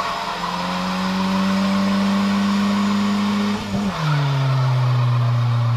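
Car engine held at high revs during a burnout, with the spinning tyres squealing under a steady hiss. About three and a half seconds in, the revs dip briefly and settle at a lower steady pitch.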